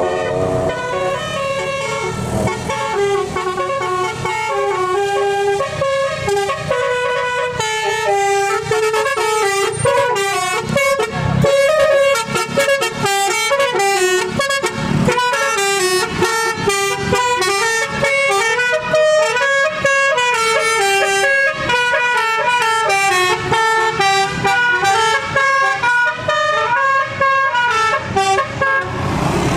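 Tour bus's multi-tone telolet horn (Basuri type) playing a fast tune, chords of horn notes stepping up and down one after another without a break.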